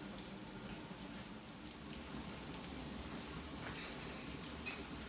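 Food cooking in a pot on the stove: a faint, steady sizzling and bubbling with a few small ticks.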